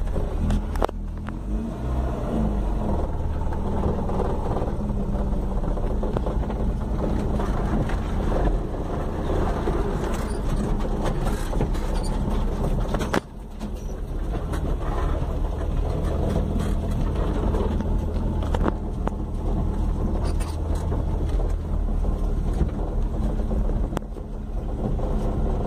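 Inside the cab of a 1997 Volkswagen Saveiro pickup on a dirt road: the engine runs steadily under a low road rumble while towing a loaded livestock trailer, with a brief dip in level about halfway.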